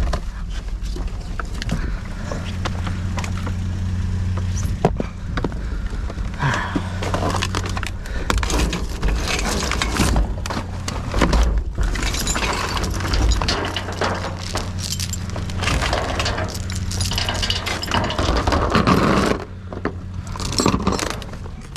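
Junk being rummaged through and shifted in a dumpster: repeated clattering, clinking and knocking of scrap and debris, over a steady low hum.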